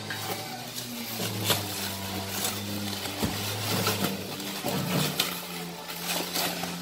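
Plastic packaging crinkling and tearing in short, irregular crackles as it is slit and pulled off a piece of furniture.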